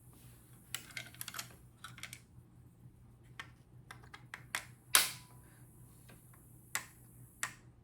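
Irregular sharp taps and clicks as the stubborn wooden forearm of a vintage Daisy BB gun is bumped loose from the metal action. The loudest knock comes about five seconds in.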